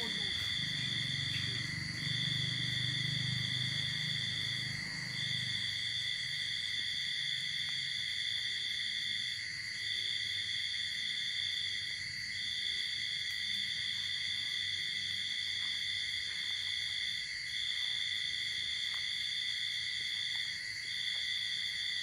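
Insects droning in a steady high-pitched chorus, with one tone cutting out briefly and returning every two to three seconds. A low rumble sits under it for the first few seconds.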